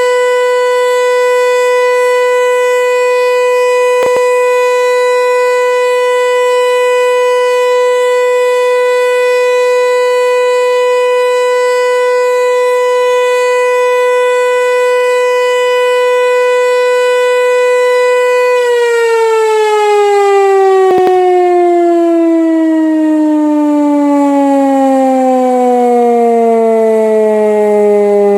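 Pneumatic high-performance civil-defence siren sounding loud and close, holding one steady tone: the continuous all-clear (Entwarnung) signal. About two-thirds of the way through, the tone begins sliding steadily down in pitch as the siren winds down.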